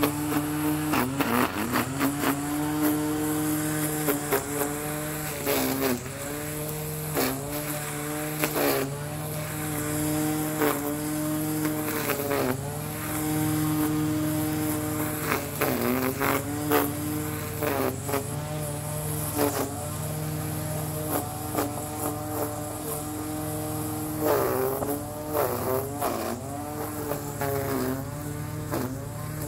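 Electric string trimmer cutting grass, its steady motor whine dipping in pitch and recovering over and over as the line bites into the grass, with short ticks as it strikes.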